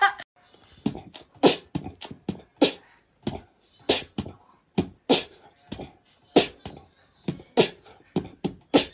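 Sparse percussive music beat of short, sharp hits, with a stronger accent about every 1.2 seconds.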